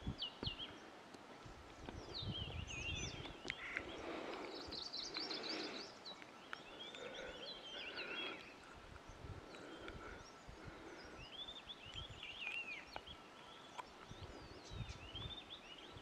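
Faint birdsong from several birds: repeated quick high chirps and short whistled notes that overlap at different pitches.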